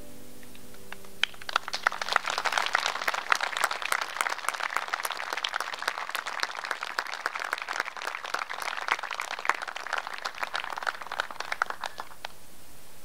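The last notes of a Celtic harp ringing away, then an audience applauding. The applause starts about a second in and thins out near the end.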